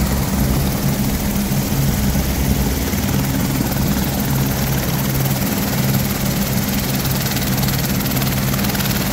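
Airbus AS350-type single-turbine helicopter running on the ground, its turbine and rotors making a steady, loud drone over a rushing hiss.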